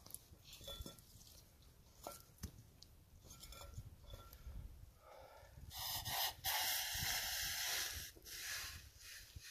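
Stainless steel camping pot lifted off a campfire with a few light metal clinks. Then comes about three seconds of loud hissing as hot liquid pours from it, stopping suddenly.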